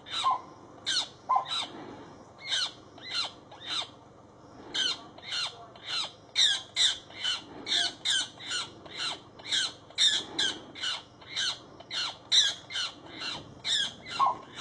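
Harsh distress squawks of a magpie pinned under a young hawk, repeated about two to three times a second, each call dropping in pitch at its end, with a short pause about four seconds in.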